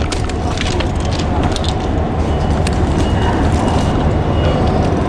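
Wind rumbling on the microphone over city street noise, with scattered light clicks and a faint high steady tone through the middle.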